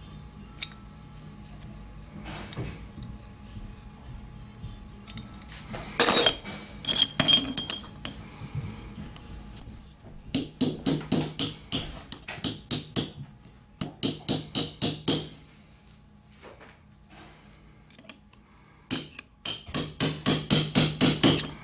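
Hammer tapping steel frame clips onto the frames of a Columbia drywall angle head: a few ringing metal clinks, then runs of quick light taps, about four a second.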